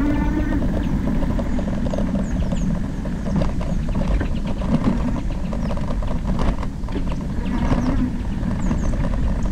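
Wind rushing over a GoPro's microphone on a moving e-bike, with the bike rattling and knocking over trail bumps. A few brief high chirps come through.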